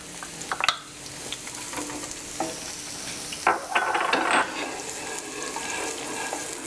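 Chopped onions sizzling in hot olive oil in a frying pan. In the first second a few taps sound as the wooden spoon scrapes the onions from a glass bowl. Then the spoon stirs and scrapes them around the pan, loudest from about three and a half to four and a half seconds in.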